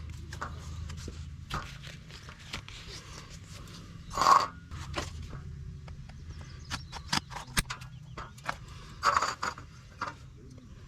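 A series of short scrapes and clicks, the loudest two about four and nine seconds in, over a low steady background hum.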